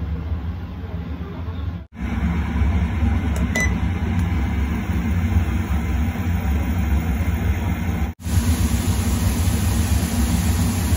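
Steady low mechanical hum with an even hiss over it, a kitchen fan running while prawns fry in oil in a pan. The sound cuts out for an instant twice, about two and eight seconds in.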